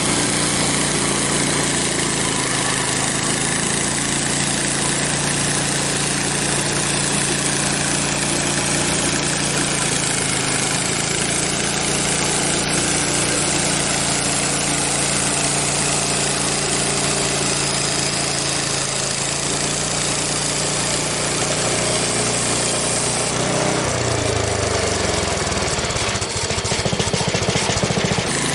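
Frontier OS23 portable bandsaw mill running steadily, its engine and blade sawing half-inch cottonwood planks. About three-quarters of the way through, the engine's low note drops and wavers for a few seconds.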